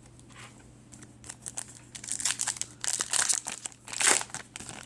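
Foil trading-card pack wrapper crinkling as it is handled and torn open, in irregular crackly bursts that start about a second in.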